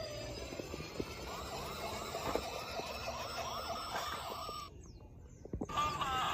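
Toy police car's electronic siren, warbling quickly up and down in pitch, cutting off about five seconds in. Music starts just before the end.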